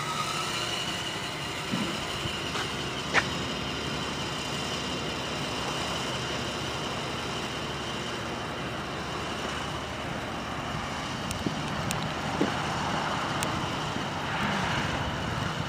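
Steady outdoor background noise, an even hiss with a faint steady high whine running through it and a few light clicks.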